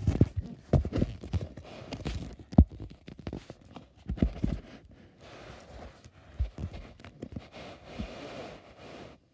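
Irregular dull thumps and knocks, roughly one a second, with light rustling between them.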